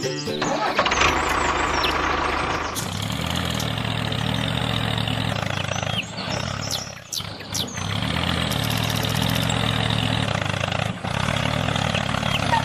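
A small engine running steadily, briefly dipping twice, about halfway through and again near the end, with a few bird chirps in the first few seconds.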